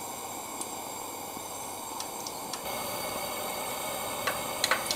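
Camp stove burner hissing steadily, with a few faint clicks near the end.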